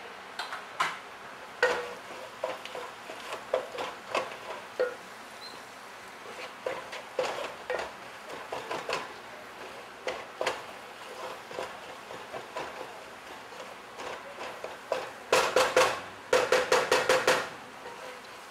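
A spatula stirring the onion and ginger-garlic base in a cooking pan, knocking and scraping against the pan in irregular clinks, with a quick run of taps near the end.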